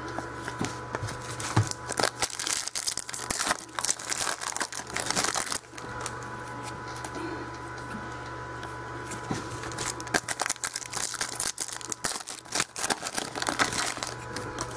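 Crinkling and tearing of a foil trading-card pack wrapper, in two irregular crackling stretches, along with cards being handled.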